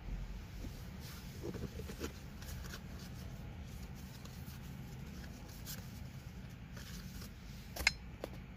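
Rustling and light clicks of a phone being handled, over a low steady hum. A sharper click comes near the end.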